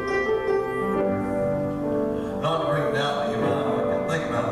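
Slow hymn music: piano with singing, several notes held long at once.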